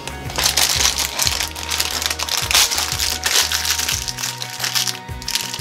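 Foil wrapper crinkling and crumpling as it is unwrapped by hand from a small blind-bag toy figure, over background music with a steady bass line.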